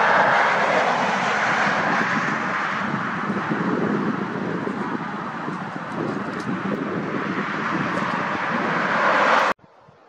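Highway traffic: a steady rush of tyre and engine noise from cars going by on the road, swelling as a vehicle passes, then cutting off suddenly near the end.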